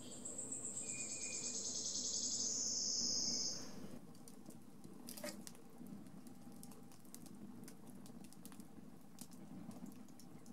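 Shrill, cricket-like chirring, the piped nature sounds of a tiled public restroom, for the first four seconds or so. It then gives way to a wood campfire crackling, with scattered sharp pops.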